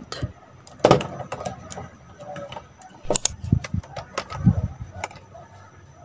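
Plastic clicks and knocks from a Deerma DX700 handheld vacuum's plastic parts being handled and fitted together, motor off. There is a sharp click about a second in, a few more around three seconds, and others near four and a half and five seconds.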